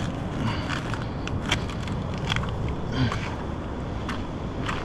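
Steady low rumble of wind on the microphone, with a few short scuffs and knocks of footsteps climbing over wet rock.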